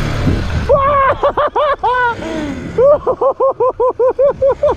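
A short rush of wind and motor noise, then a man laughing hard: a long chain of quick, even 'ha-ha-ha' bursts, about five or six a second, in the second half.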